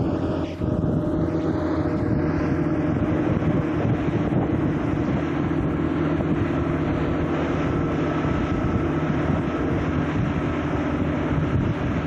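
Motorboat engine running steadily at speed, with wind buffeting the microphone and water rushing past the hull.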